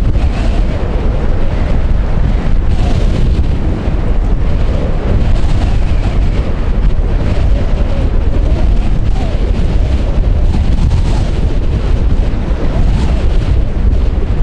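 Wind buffeting the microphone: a loud, steady low rumble with a rushing noise over it, mixed with the sound of a large container ship passing close by on the water.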